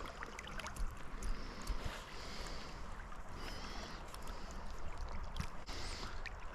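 Creek water running and sloshing, with scattered small clicks and a steady low rumble on the microphone.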